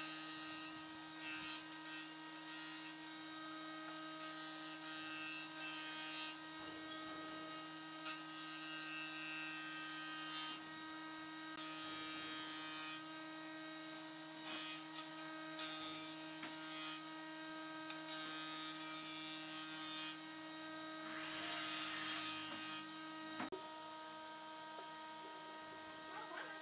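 Jointer running with a steady motor hum, broken by repeated stretches of hissy cutting noise as a solid wood beam is pushed across the cutterhead pass after pass.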